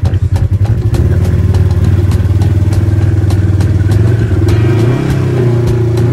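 Side-by-side UTV engine running, pulsing at first, then settling into a steady drone as the vehicle pulls away; from about four and a half seconds in its pitch rises and falls as it is revved while driving.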